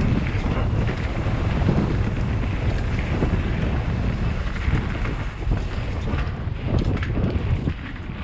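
Wind buffeting a helmet-mounted GoPro on a fast mountain-bike descent, mixed with plus-size knobby tyres rumbling over dirt singletrack and the bike knocking and rattling over bumps. It eases slightly near the end.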